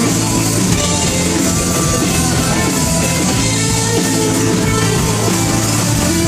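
Live rock band playing a song through a PA at a sound check, steady and loud.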